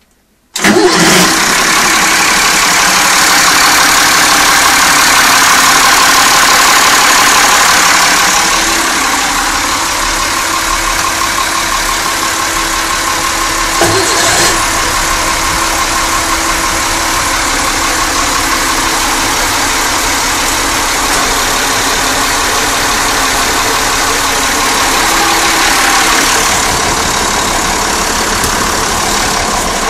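Perkins 6.354 six-cylinder marine diesel running steadily in a boat's engine bay, coming in abruptly about half a second in, with a brief knock about fourteen seconds in.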